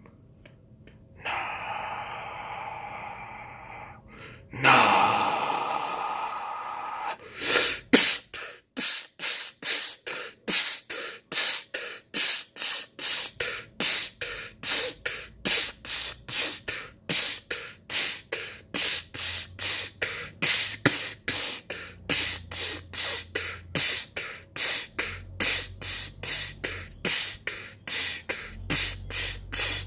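A person making rhythmic breathy hisses through a hand held over the mouth. After two longer breaths at the start, short sharp hisses follow at a steady pace of about two a second, with a low rumble coming and going under them in the second half.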